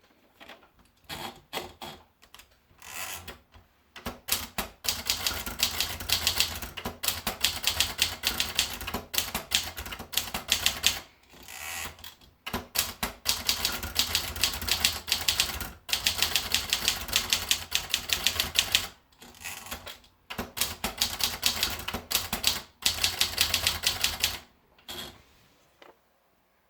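Contessa De Luxe manual typewriter being typed on quickly: long runs of rapid key strikes with a few brief pauses. The typing stops a second or two before the end.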